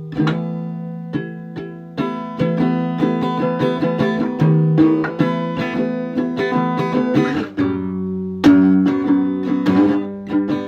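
Guitar music: notes plucked one after another in a steady pattern, moving to a different chord pattern a little past halfway.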